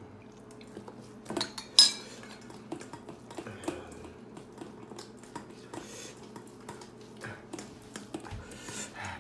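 Spoons and a stainless steel bowl clinking and knocking against dishes as food is mixed by hand in the bowl, in scattered short clicks with one sharp clank just under two seconds in.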